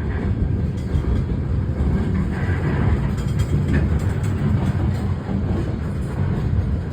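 CSX local freight train rolling past with a steady low rumble.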